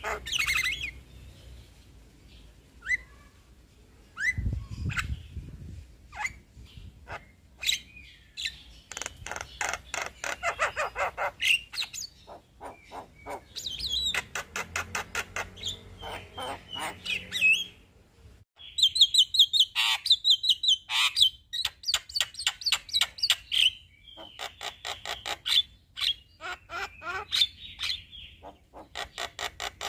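Male Javan myna singing in long rolling runs of rapid, repeated sharp notes, several a second, broken by short pauses. A low thump comes about four and a half seconds in.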